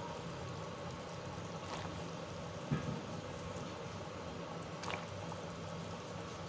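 Pork-bone stock at a rolling boil in a stainless steel pot, bubbling steadily. A brief soft thump comes a little under three seconds in.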